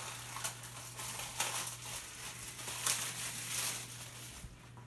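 Thin plastic packaging crinkling and crackling in irregular bursts as it is pulled open by hand to free silicone mini mitts, dying down near the end.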